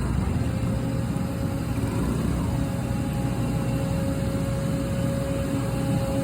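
Heavy diesel engine of a JCB excavator running steadily, with no strikes or impacts. A faint steady whine joins in about halfway through.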